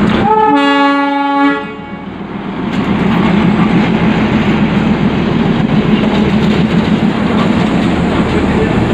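Darjeeling Himalayan Railway diesel locomotive sounds one horn blast of about a second and a half near the start. Its diesel engine then runs steadily as it moves past.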